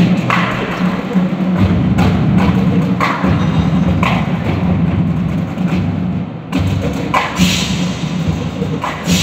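Marching band playing, with sharp drum and percussion hits about once a second over a dense, steady band sound.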